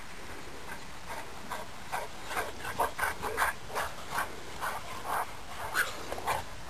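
Dogs barking and yelping in rough play: many short calls, several a second, starting about a second in, over a steady background hiss.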